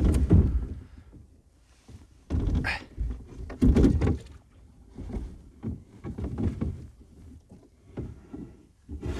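Dull thumps and knocks on a canoe hull as a stone anchor is set, several at irregular moments, the loudest about two and a half and four seconds in.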